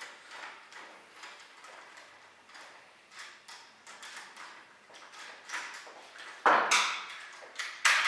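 Screwdriver turning the cylinder fixing screw of a mortise door lock, giving small metal clicks about twice a second. Two louder metal knocks come near the end.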